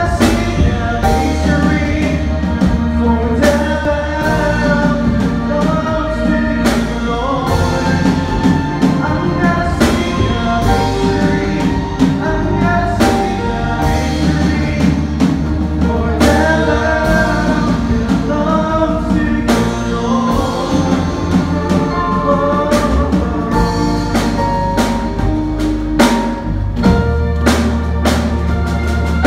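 A worship team singing a contemporary praise song through microphones, a male lead voice with group vocals, over drums, bass and band accompaniment.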